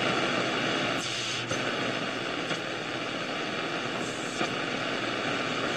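Steady static hiss from a 1968 Panasonic RE-6518 transistor radio's speaker as the dial is tuned between stations, with a few faint crackles.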